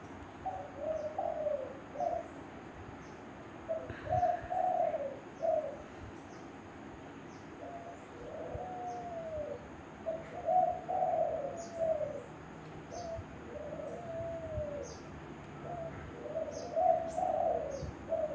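A bird calling over and over in short, low phrases, each with a rise and fall in pitch, about every one to two seconds.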